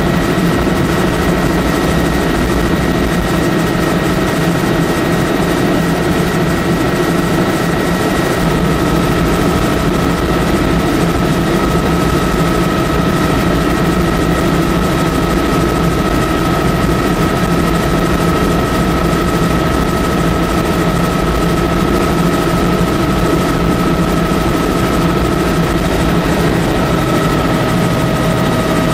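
Helicopter in flight, heard inside the cabin: a loud, steady drone of engine and rotor with a thin high whine held at an even pitch.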